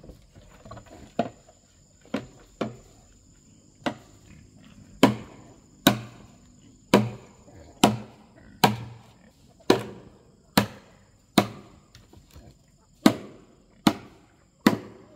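Repeated sharp blows of a hand tool, such as chopping or hammering, a few scattered at first and then steady at about one a second. A steady high insect drone runs underneath.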